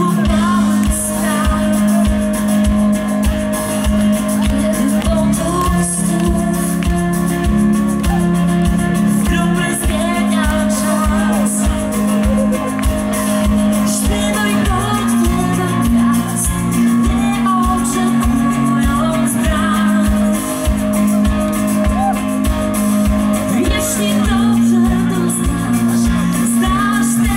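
Live rock band playing amplified through a PA, with a steady kick-drum beat, electric guitar and bass, and a woman singing over it.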